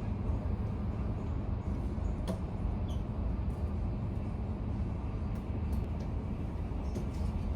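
Passenger train running: a steady low rumble with a few faint clicks.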